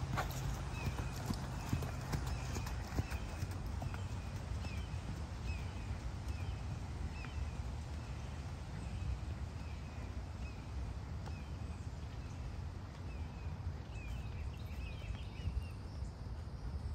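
A grey horse's hoofbeats on a sand arena as it walks and then jogs under a western saddle, over a low steady rumble. A faint high chirp repeats about every half second.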